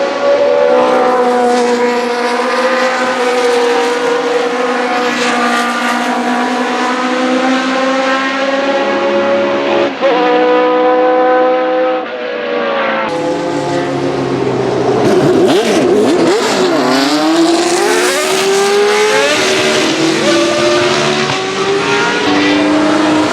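Cosworth DFV 3.0 V8 of a 1982 Arrows A4 Formula 1 car running at high revs, its pitch held high and steady. About halfway through the sound changes abruptly, and the revs then rise and fall repeatedly through gear changes.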